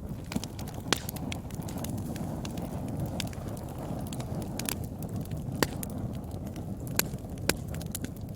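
Wood fire burning: a steady low rumble with irregular sharp crackles and pops, a handful of them louder snaps.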